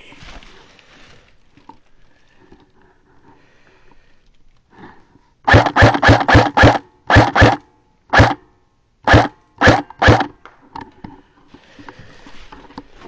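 Airsoft replica firing quick single shots, about eleven in all. A run of five comes about five seconds in, then a pair, then four spaced single shots, each a loud sharp crack.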